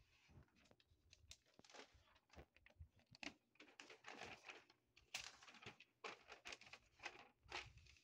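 Faint crinkling and rustling of paper instruction sheets being unfolded and handled, in quick irregular bursts.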